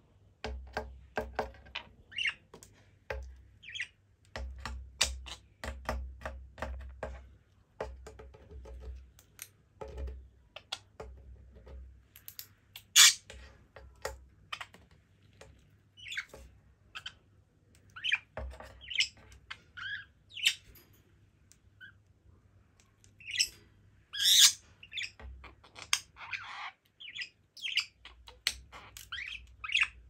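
Budgerigar chirping and giving short squawks, loudest twice, about halfway through and again later. Under the calls run many quick, light taps of its beak and claws on a tile floor.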